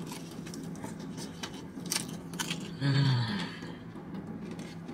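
Crisp fried-chicken crust crunching as a bite is chewed, a run of short crackling crunches close to the mouth. About three seconds in comes a short appreciative hum.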